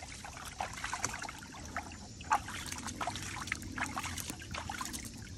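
Water splashing and trickling in a shallow tub as small dogs wade in it and a hand scoops water over them: a string of short, irregular splashes and drips.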